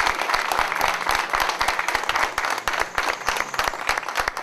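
A small crowd applauding: many hands clapping in a dense, irregular patter.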